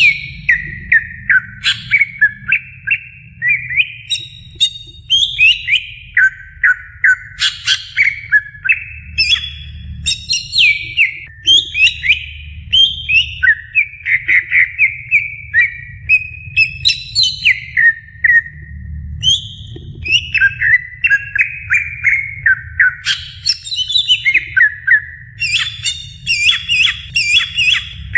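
Green leafbird (cucak ijo) singing a long, varied song of rapid whistled and chattering notes, phrase after phrase with only brief pauses.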